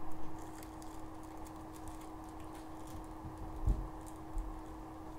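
Hands handling small objects on a desk: scattered light taps and clicks, with one dull thump about three and a half seconds in, over a steady low hum.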